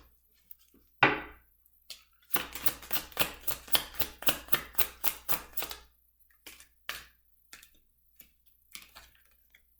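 Tarot cards being shuffled by hand: a sharp tap about a second in, then a quick, even run of card slaps, about six a second, lasting some three seconds, followed by a few scattered soft taps.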